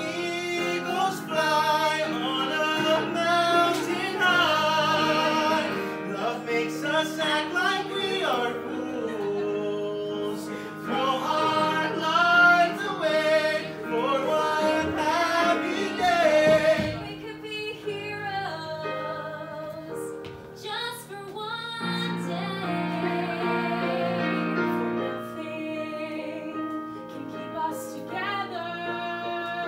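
Live musical-theatre singing: mostly female voices, sung with vibrato over an instrumental accompaniment that holds sustained notes. The singing eases off for a few seconds just past the middle, then comes back.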